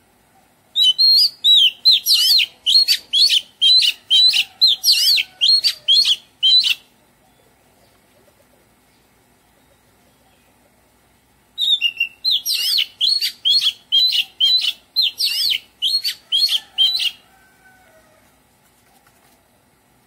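Oriental magpie-robin singing: two bouts of song, each about six seconds of quick, high whistled notes at two or three a second, with a pause of about five seconds between them.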